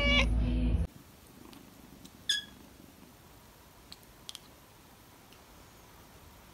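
Cat chattering, a rapid run of clicking "ek-ek-ek" calls that cuts off suddenly about a second in. A couple of seconds later a kitten gives one short chirp, followed by two faint clicks.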